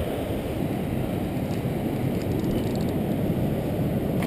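Steady low rumble of wind buffeting a body-mounted camera's microphone, with a few faint ticks.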